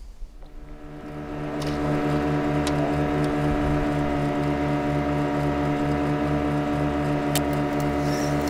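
Boat's outboard motor running at a steady speed, growing louder over the first two seconds and then holding an even drone with a fast regular pulse.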